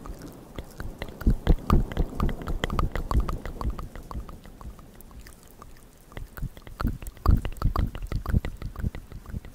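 Wet ASMR mouth sounds made right against a small microphone held at the lips: rapid moist clicks and smacks. They come in two busy stretches with a sparser spell in the middle.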